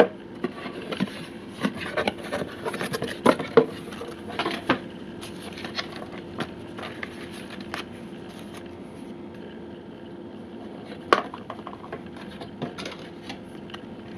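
Hands handling packaging: paper, cardboard and plastic rustling with small clicks and scrapes as items come out of a foam-lined box, busy for the first few seconds and then sparser, with one sharp click a little before the end. A faint steady hum runs underneath.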